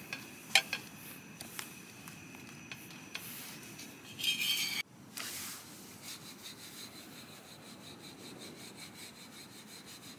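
A flat metal spatula clicking and scraping against a roti on a tawa, the loudest a sharp click about half a second in. Then, from about five seconds in, a wooden rolling pin rolls out roti dough on a wooden board with a steady soft rubbing.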